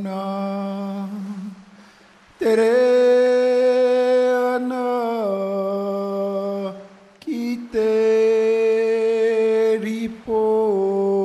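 Background music of long, held chant-like tones that step down in pitch every few seconds, with short breaks between phrases.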